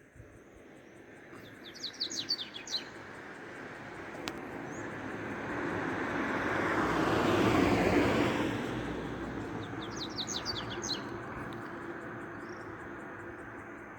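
Double-collared seedeater (coleiro) singing its 'tui-tui' song, two short phrases of rapid high notes, about two seconds in and again about ten seconds in. A vehicle passes between them, loudest around the middle, and is the loudest sound overall.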